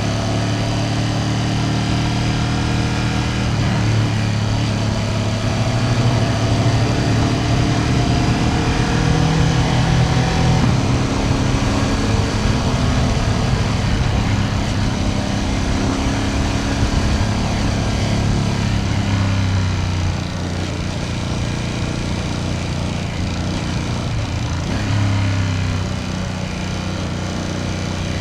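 Ducati Panigale V2S's 90-degree V-twin engine and exhaust under way at a steady cruise. Its pitch climbs slowly over the first ten seconds, eases off about twenty seconds in, and rises briefly on the throttle about twenty-five seconds in.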